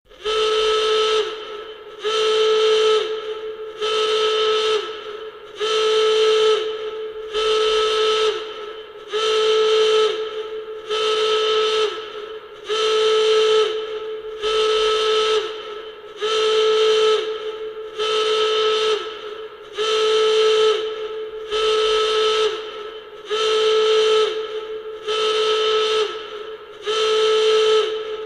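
Nuclear alarm sounding in repeated blasts, about one every two seconds. Each blast is a steady, harsh tone that sags in pitch as it cuts off.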